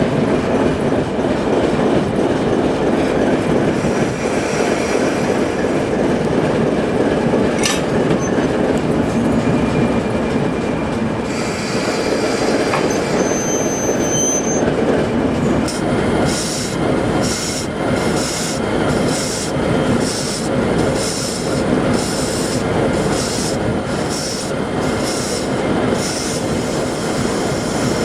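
Train running on the rails with a steady rumble, and a brief high-pitched wheel squeal about 13 seconds in. In the second half a run of short, evenly spaced high-pitched pulses sounds over the rumble.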